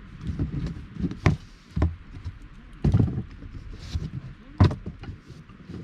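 Hardwood campfire burning and crackling, with several sharp pops over a low rumble.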